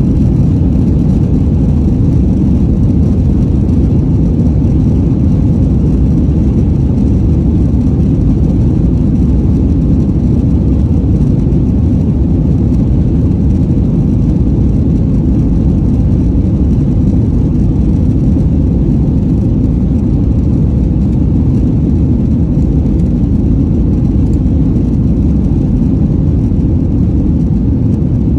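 Boeing 737-900 heard from inside the cabin during takeoff: its CFM56-7B turbofans at takeoff power, a loud, steady, deep rushing noise mixed with airflow and rolling rumble.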